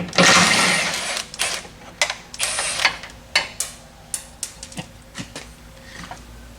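A short burst from a power tool right at the start and another about two and a half seconds in, among a string of irregular metal clicks and clanks from tools working on a car's transmission and crossmember.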